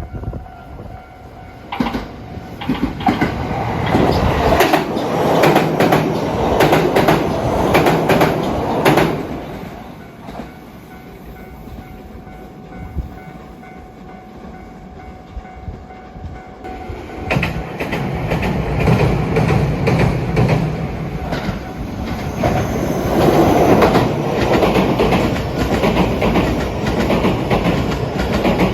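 Train running past on the rails, its wheels clacking over rail joints; loud for several seconds, quieter for a few seconds around the middle, then loud again.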